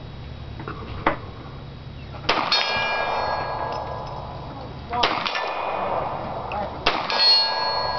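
Rifle shots at a steel buffalo target: a sharp crack about a second in, then three more shots a couple of seconds apart, each followed by the steel target ringing for a second or two as it is hit.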